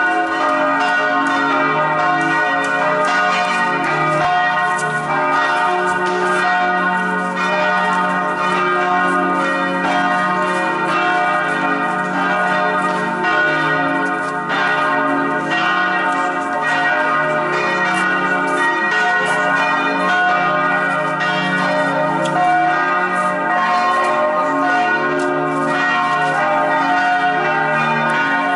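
The bells of the Church of the Holy Sepulchre ringing without pause, many strikes overlapping into a dense, steady peal. It is the noon ringing, which marks the hour when Jesus was nailed to the cross.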